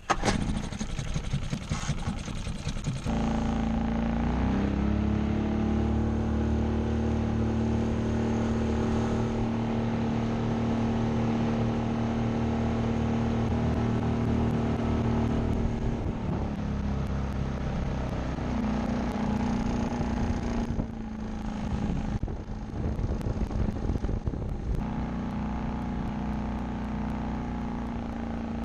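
Boat's outboard motor running: rough and noisy for the first three seconds or so, then settling into a steady engine note whose pitch shifts a few times.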